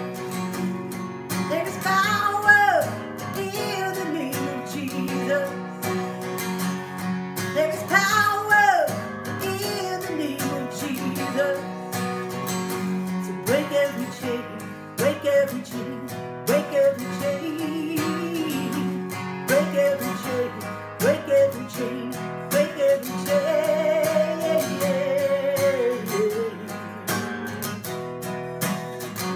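A woman singing a Christian worship song while strumming chords on an acoustic guitar, with long held sung notes.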